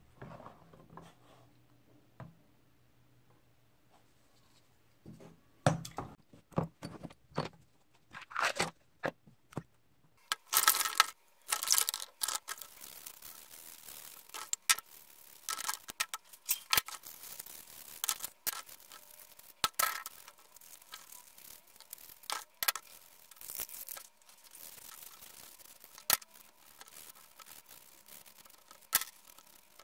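Workshop hand work: a few separate clicks and knocks, then from about ten seconds in a long run of irregular scraping strokes with a faint steady tone underneath.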